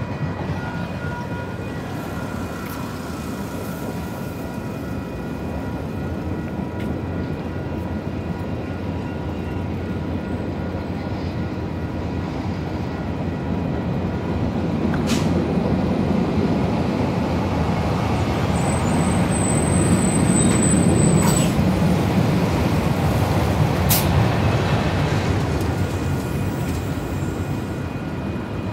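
Freight train cars rolling steadily past over a grade crossing: a continuous rumble of wheels on rail that grows louder in the middle, with a few sharp clanks and a brief high-pitched squeal about two-thirds of the way through.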